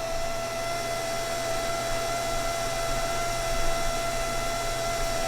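Clothes dryer running, its blower pushing air out through the freshly cleaned vent: a steady rush of air with a constant motor whine.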